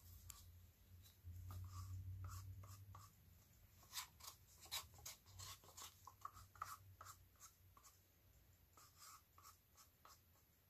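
Faint, scattered light clicks and scrapes of a wooden craft stick against a small paper cup and the canvas as thick acrylic pouring paint is scraped out and laid along a stripe.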